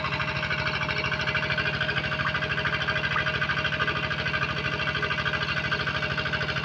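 Small engine running steadily with an even, rapid beat.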